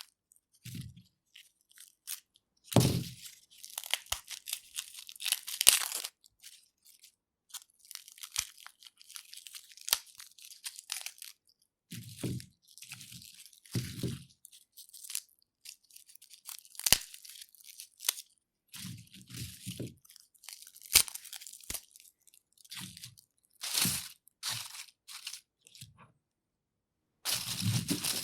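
Garlic being peeled: the dry papery skins crackle, crunch and tear in irregular bursts, with sharp clicks and a few short low thuds.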